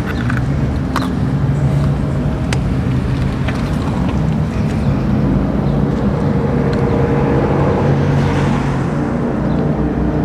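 A motor vehicle's engine running steadily, with a few sharp clicks in the first few seconds.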